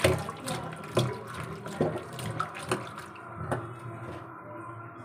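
Hand swishing and splashing cut bitter gourd pieces in a steel bowl of water while washing them, with sharp splashes and knocks against the bowl about every half second to a second. It grows quieter about three and a half seconds in.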